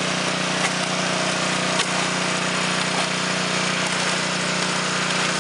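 Small engine of a Stone mortar mixer running steadily, with one short knock about two seconds in.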